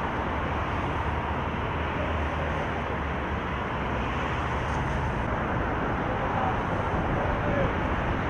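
Steady outdoor background noise of an open football ground, an even rushing haze, with a few faint distant calls.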